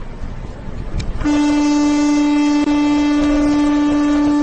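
Vehicle horn held down in one long warning blast of about three seconds, a single steady tone that starts about a second in and cuts off abruptly. Road and engine rumble runs underneath.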